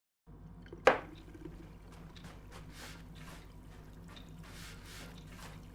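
Water splashing and dripping as dishes are washed by hand in a sink, with a sharp clatter of crockery about a second in, over a steady low hum.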